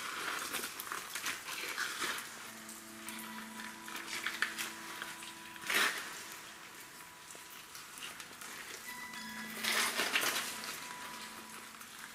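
Sparse live improvised music: soft held tones that come in about three seconds in and again near the end, over rustling, scraping bursts of noise, the sharpest about six seconds in and a longer one around ten seconds.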